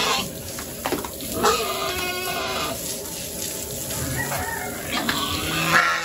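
A group of pigs squealing and grunting, with several short squeals overlapping.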